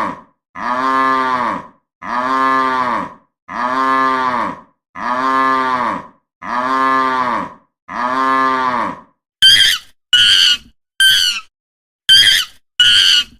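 A cow mooing: the same long moo, rising and falling in pitch, repeated about every second and a half, six times over. About nine and a half seconds in the mooing gives way to a run of short, high, falling squeals, five in quick succession.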